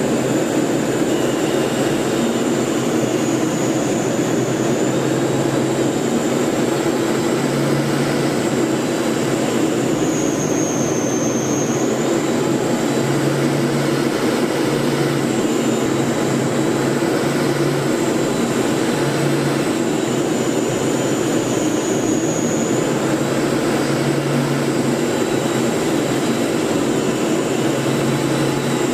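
Steady engine and airflow noise inside a military training aircraft's cockpit in formation flight, with a thin high turbine whine that wavers slightly in pitch now and then.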